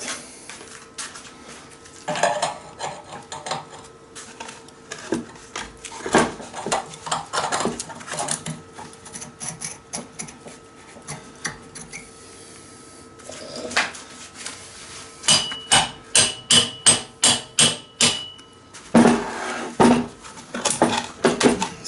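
Hammer striking metal to knock loose a stuck part: scattered knocks and scrapes, then a quick run of ringing strikes at about three a second past the middle, followed by a few more knocks.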